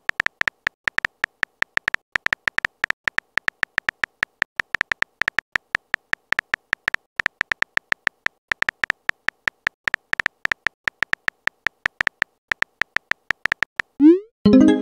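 Phone keyboard typing clicks from a texting-story app: short, high ticks several a second with brief pauses as a message is typed out letter by letter. Near the end a rising swoosh and a short, louder tone sound as the message is sent.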